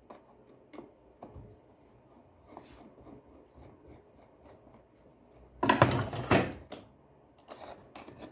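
Small clicks and knocks of parts and tools being handled on a workbench during a vacuum cleaner repair, with a louder clatter and scrape lasting about a second, a little past halfway.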